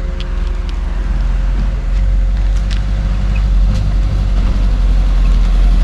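A motor vehicle running, a deep steady rumble that grows louder about two seconds in.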